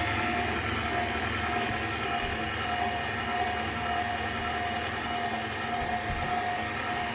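Stand mixer's electric motor running steadily at speed, a constant whine with a low hum beneath, as it mixes the cookie batter.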